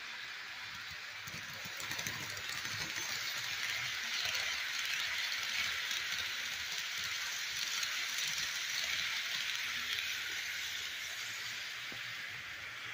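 HO scale model freight train rolling past close by: a steady rattling hiss of its wheels on the track, louder from about two seconds in as the cars go by and easing off near the end.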